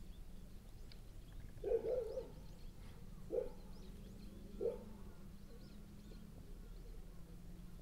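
Capybara making three short, soft low calls, the first about two seconds in and the others a little over a second apart.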